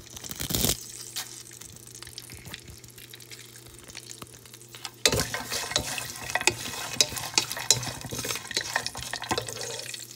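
Whole garam masala spices and red chili frying in ghee in a pot, a steady sizzle with a brief louder burst just after the start. From about five seconds in, a spoon stirring and scraping against the pot, with many quick clicks.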